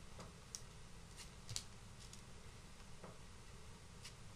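Faint, scattered soft ticks and crinkles from a pastry bag and baking paper as meringue is piped out in small rosettes, over otherwise near-silent room tone.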